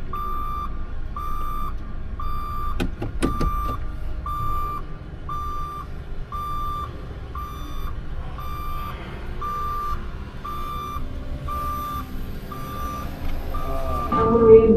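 Reverse warning beeper sounding steadily, about two beeps a second, with a few sharp knocks about three seconds in.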